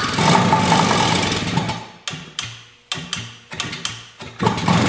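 Suzuki GT185's two-stroke twin engine running on its first start after sitting for over 20 years: it runs for about two seconds, dies away into a few separate sputtering firings, then catches and runs again near the end. It is only running for moments at a time on a crankcase flooded with oil, which the owner suspects leaked in from the oil injection pump.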